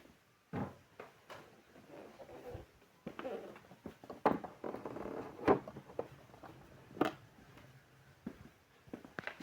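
Small objects being picked up and set down on a dressing table while it is tidied: a string of sharp clicks and knocks, the loudest about four, five and a half and seven seconds in, with soft rustling in between.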